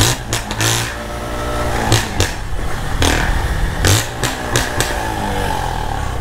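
Motorcycle engine running as it is ridden, its pitch dropping and climbing again as the throttle is eased and opened, with several short loud thumps of noise along the way.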